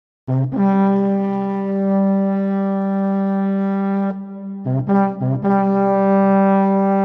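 A low brass-like horn note held for about four seconds, then a few short blasts and the same note held again, all at one steady pitch.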